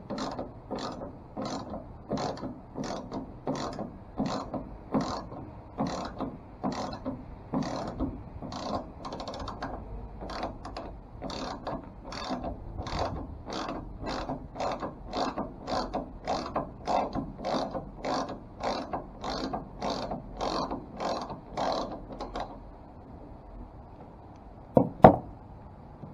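Hand socket ratchet swung back and forth to back out a hex bolt, its pawl clicking in short bursts about twice a second. The ratcheting stops a little before the end, followed by one sharp clack.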